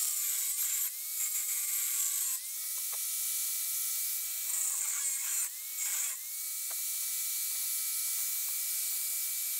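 Angle grinder with a cutoff disc scoring across flat aluminum bar: a steady motor whine under a high cutting hiss, the whine sagging and recovering a few times as the disc is worked through the metal.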